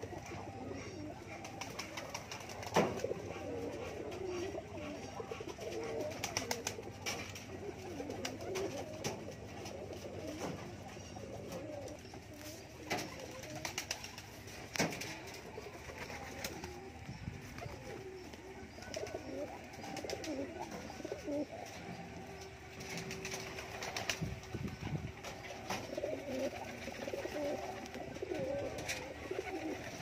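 A flock of domestic pigeons cooing continuously as they feed, the coos overlapping into a steady warble, with occasional sharp taps scattered through it.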